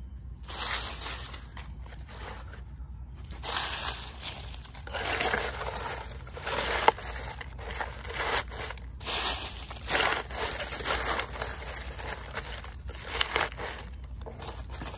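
Dry fallen leaves crackling and rustling as a gloved hand scoops them up and packs them into black plastic plant pots, in irregular bursts that come thickest from a few seconds in.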